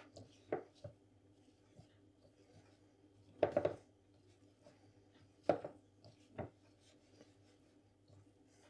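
Hands kneading soft scone dough in a ceramic bowl that stands on a wooden board, making a scatter of dull thuds and knocks as the dough is pressed into the bowl. The loudest are a quick cluster about three and a half seconds in and a single knock about five and a half seconds in.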